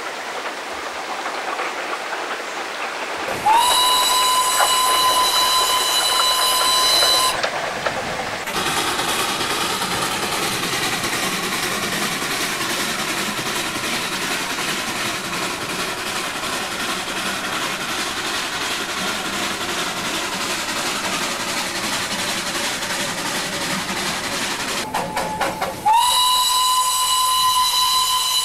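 Darjeeling Himalayan Railway steam locomotive sounding its whistle in two long blasts, one starting about three seconds in and lasting some four seconds, the other near the end. Each blast rises briefly in pitch as it opens. Between them the train runs steadily.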